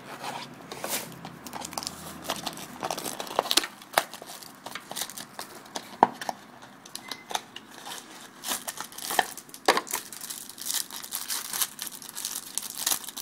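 Plastic wrapping being slit, torn and crinkled off a sealed trading-card hobby box: a run of irregular sharp crackles and rips.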